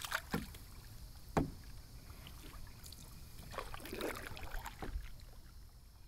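Canoe paddling: soft splashes and drips of a paddle in the water, with a sharp knock about a second and a half in and a cluster of splashes past the middle.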